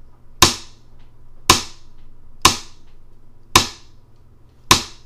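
A series of sharp cracking hits, about one a second, five in all, each with a short fading tail, over a steady low hum.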